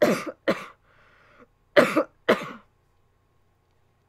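A woman coughing: two pairs of sharp coughs about a second and a half apart, with a short noisy breath drawn between them.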